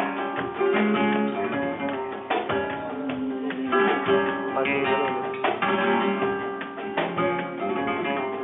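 Flamenco guitar playing: picked melodic notes broken every second or so by sharp strummed chords.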